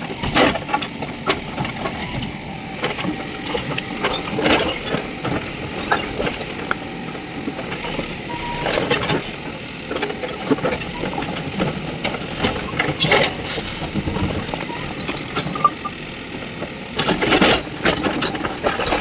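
Mahindra backhoe loader's diesel engine running under work, with louder bursts about every four seconds.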